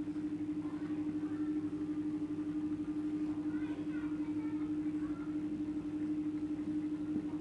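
Short squeaks of a marker drawing strokes on a whiteboard, a little after the start and again around the middle, over a steady electrical hum.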